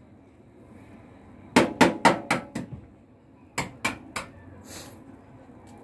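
An egg tapped against the rim of a ceramic bowl to crack its shell: a quick run of about five sharp taps, then about four more a second and a half later.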